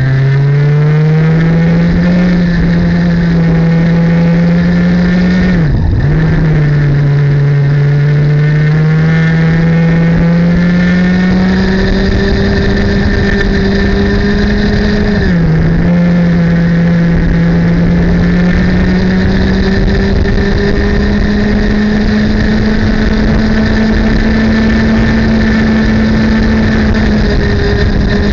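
Two-stroke racing kart engine running hard, heard from on board; its pitch climbs steadily as the revs build, then drops sharply twice, about six and fifteen seconds in, as the throttle comes off for corners, and climbs back each time.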